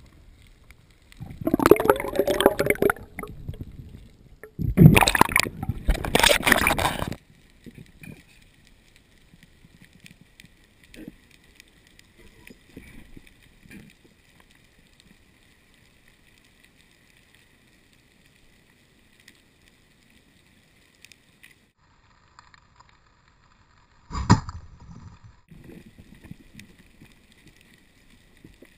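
Two loud, rough blasts of breath through a snorkel with water sloshing, between one and seven seconds in, then muffled underwater quiet. About 24 seconds in, one sharp knock with a short rumble as the three-prong pole spear strikes a fish.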